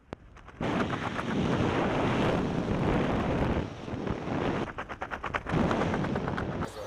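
Wind buffeting a camera microphone during a parachute descent under an open canopy: a rushing, fluttering noise that starts abruptly about half a second in, eases off around the middle and comes back near the end.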